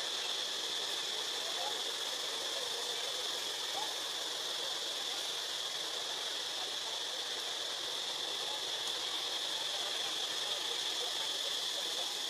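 Steady forest ambience: a continuous high-pitched drone over an even hiss, unchanging throughout.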